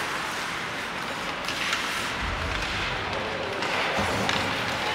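Ice hockey game in an arena: a steady hiss of skates on the ice, with sticks and puck clattering and a couple of dull thumps.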